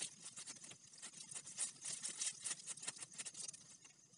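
Thin plastic ribbon cut from drink bottles crinkling and rustling as gloved hands wind it around a sapling and stick: a quick, uneven run of faint crackles.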